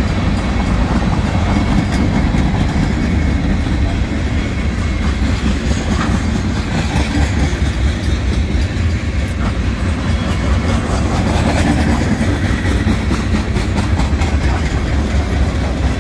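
Freight train cars rolling past close by: a steady low rumble of steel wheels on rail, with the clickety-clack of wheels over rail joints.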